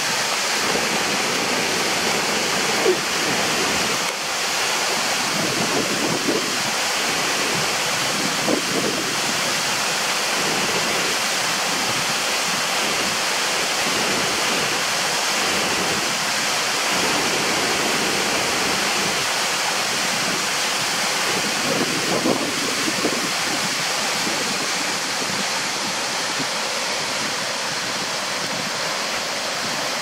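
Steady rush of a waterfall pouring into a rock pool, unchanging throughout, with a few brief, slightly louder moments over it.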